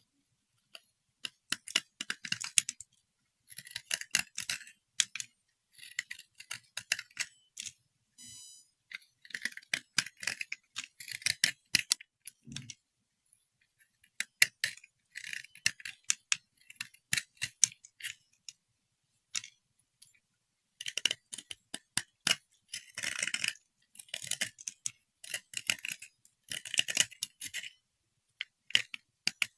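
Irregular bursts of clicking and clattering from small hard objects being handled, with short gaps of silence between the bursts.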